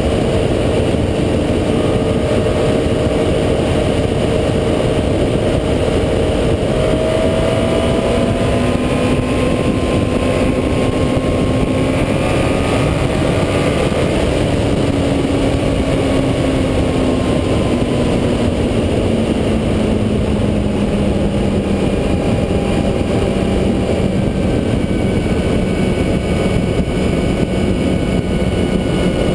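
Honda CBR954RR's inline-four engine running under way, with heavy wind rush over a bike-mounted camera. The engine note rises in pitch through the middle, then falls away and holds steady near the end.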